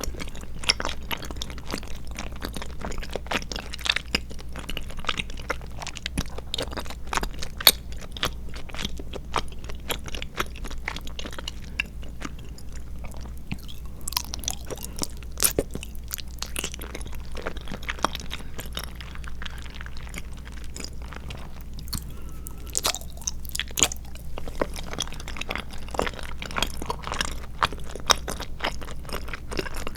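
Close-miked chewing of chewy tapioca pearls and milk jelly: a dense run of wet clicks and smacks from the mouth, with a steady low hum underneath.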